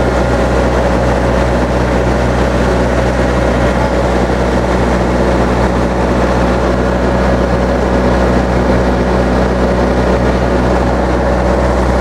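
Ice cream truck's engine idling close by: a loud, steady low drone that doesn't change.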